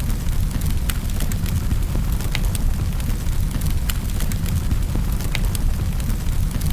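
Wood fire burning in a fireplace: a steady low rumble of flames with frequent sharp crackles and pops scattered irregularly.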